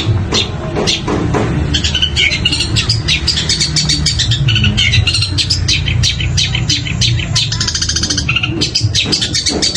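Long-tailed shrike (cendet) singing a fast, unbroken string of chirps and squawks that mimic other birds, with a rapid rattling trill about eight seconds in, over a steady low hum.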